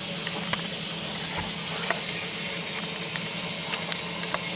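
Steady hissing with scattered small crackles and clicks, over a low steady hum.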